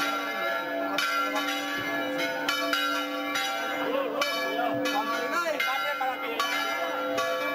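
Church bells pealing, struck over and over at roughly one to two strikes a second, each ring carrying on into the next.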